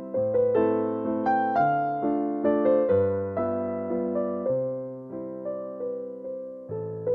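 Background music: a piano melody of struck, fading notes over a slower-changing bass line.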